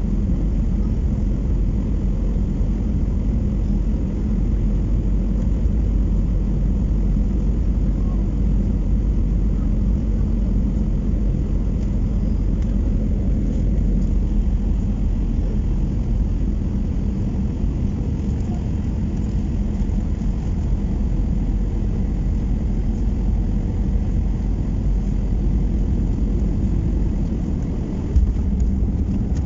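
Steady low rumble of an Airbus A319 airliner heard from inside the passenger cabin, with no distinct events.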